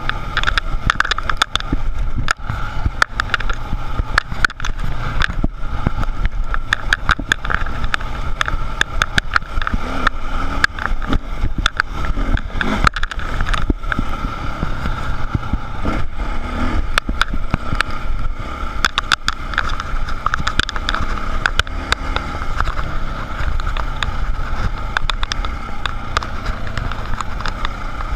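Dirt bike engine running as the bike rides a rough dirt trail, its pitch rising and falling slightly with the throttle, with frequent short knocks and rattles from the bumpy ground.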